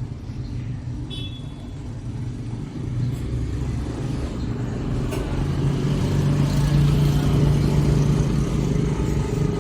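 Motorcycle engine running, getting louder over the first several seconds and then holding steady.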